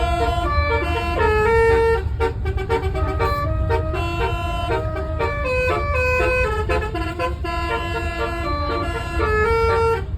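Telolet horn (Basuri multi-tone air horn) playing a quick tune of short stepped notes that jump up and down in pitch. A steady low engine rumble runs underneath.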